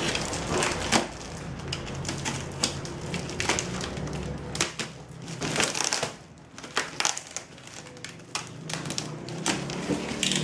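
A shipping package being opened by hand: irregular crinkling, tearing and clicking of cardboard and plastic wrapping.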